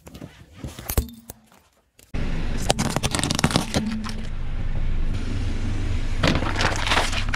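Car tyre rolling over and crushing small plastic objects, with sharp cracks and crackling. From about two seconds in, it gets much louder, with a steady low rumble from the car under the crackles.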